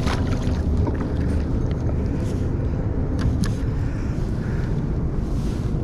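Boat motor running steadily with a low rumble, with a few light clicks about two and three seconds in.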